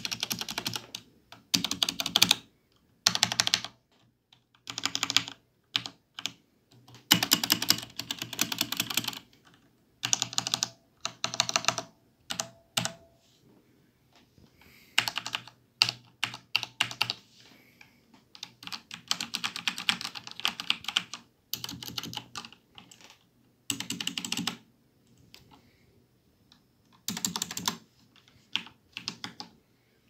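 Corsair K68 mechanical keyboard with linear Cherry MX Red switches being typed on: bursts of rapid keystrokes clacking, each burst lasting a second or two, separated by short pauses.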